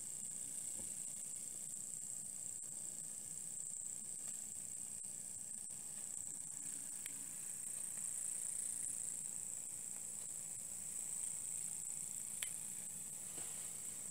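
Small homemade vertical-boiler steam engines running together, giving off a steady high-pitched hiss of steam. There is a faint click near the end.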